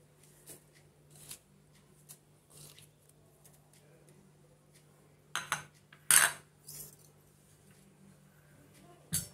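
A few short clinks and knocks of small bowls and a stainless-steel mixer-grinder jar being handled on the counter, the loudest about six seconds in, with light rustles of curry leaves dropped into the jar, over a faint steady hum.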